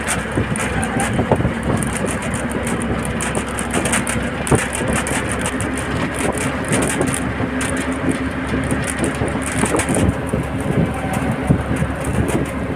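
Bus running at speed, heard from inside by an open window: a steady engine hum under road and wind noise, with frequent rattles and knocks from the body.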